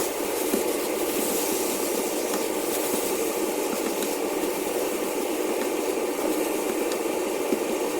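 Pan of vegetable filling for curry puffs cooking on the stove after a little water was added: a steady simmering hiss with faint small crackles.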